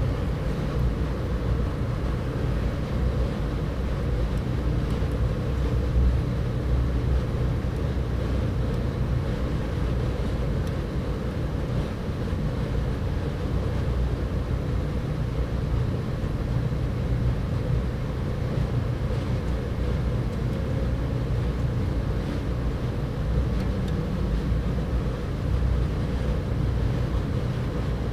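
Steady low rumble of background noise, like distant city traffic, with no distinct events.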